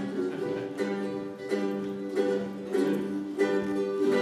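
Ukulele ensemble strumming chords together in a steady rhythm, about one and a half strums a second, with no singing.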